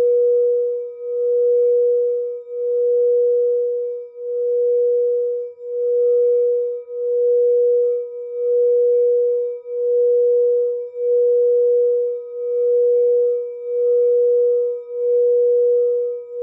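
Frosted quartz crystal singing bowl sung with a mallet circled around its rim: one sustained, steady tone with faint higher overtones, swelling and dipping in loudness about every second and a half.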